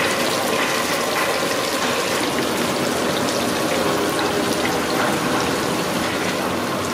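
Batter-coated fish pieces deep-frying in a large kadai of hot oil, the oil sizzling and bubbling steadily.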